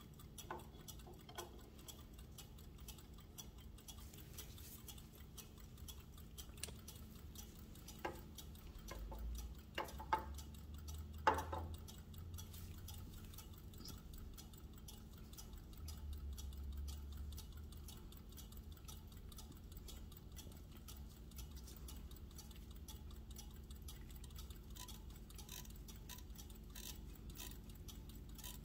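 Mechanical carriage clocks ticking quietly and steadily. A few sharper clicks and low knocks come about a third of the way in, as a brass clock is lifted and set down.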